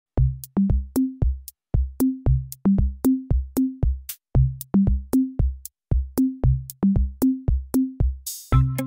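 Background music: an electronic drum-machine beat of low, pitched drum hits, about three a second. Near the end a cymbal swell leads into held synth chords over the beat.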